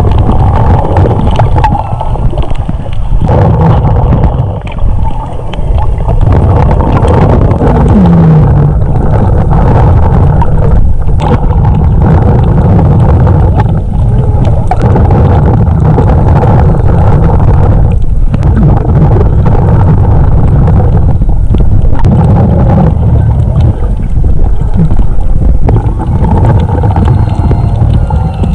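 Underwater sound picked up by a camera in its waterproof housing: a loud, muffled rumbling of water moving around the camera, with scattered clicks and gurgles.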